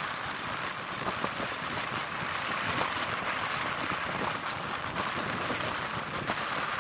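Surf breaking and washing up a sandy beach, with wind buffeting the microphone: a steady rushing noise.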